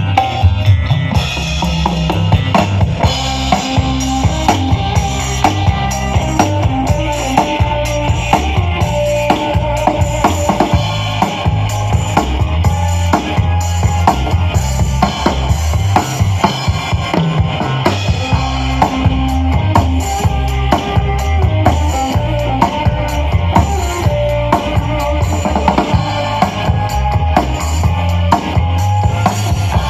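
Live orkes band music played loud through a large PA sound system: a drum kit with heavy kick drum and snare keeps a steady beat under deep bass, with a melodic instrument line above and no singing.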